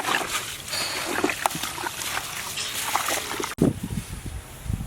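Wet squelching and smacking of chicken pieces being mixed in a thick curd and spice marinade. It breaks off abruptly about three and a half seconds in and gives way to a few duller, lower thuds.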